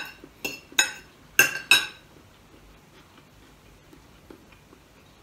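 Metal spoon and fork clinking against a plate, about five quick ringing clinks in the first two seconds.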